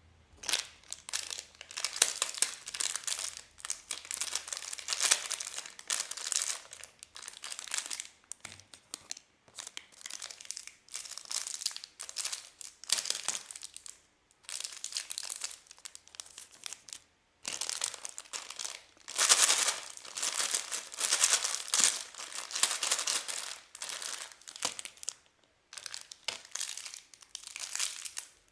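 Packaging wrappers being crinkled and torn open by hand, in irregular rustling bursts with a few short pauses.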